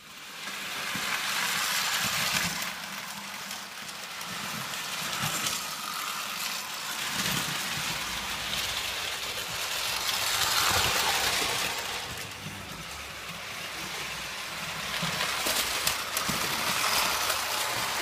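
Prewar Lionel O gauge toy train running on tinplate track: a steady metallic rumble and rattle of wheels and motor that swells and fades several times as it passes close by.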